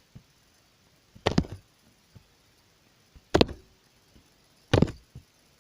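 Slime being pressed and squished by hand: three short clusters of sticky pops and clicks, about a second and a half apart, with a few faint single clicks between.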